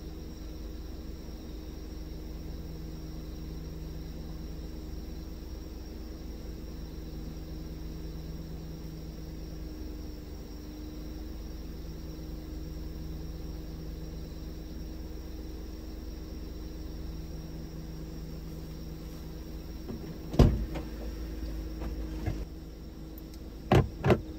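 A vehicle engine idling with a steady low hum, heard from inside the cab. A sharp knock comes about 20 seconds in, and two more close together near the end.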